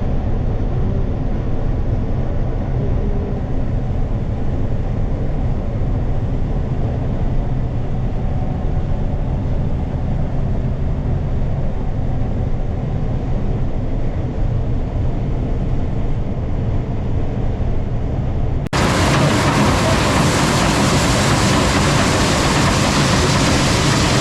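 Farm harvest machine's engine running steadily with a low drone. About three quarters of the way through it cuts to a louder, hissier steady machinery noise.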